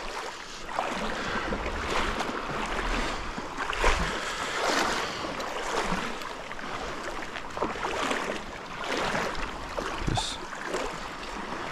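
Shallow creek water sloshing and splashing in uneven swells as someone wades through it.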